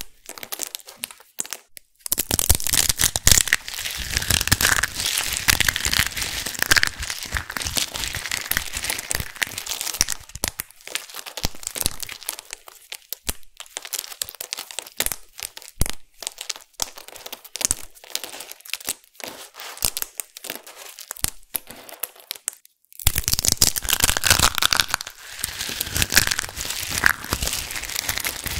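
Brittle, dried black soap pieces crushed and crumbled in the hands: dense crackling crunches. The crunching thins to scattered separate snaps and clicks through the middle, then turns dense again near the end.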